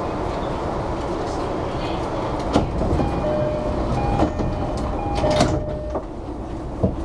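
Commuter train standing at a station platform: its two-tone door chime sounds a few times, high and low notes alternating, with the clunks of the sliding doors, over the steady hum of the stopped train.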